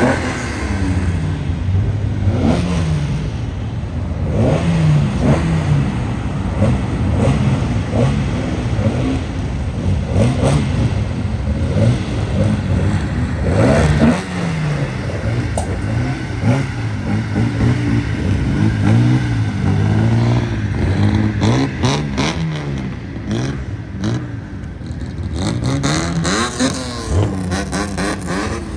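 Several modified cars driving slowly past one after another, engines revving up and falling back over and over, with a run of sharp crackles in the last few seconds.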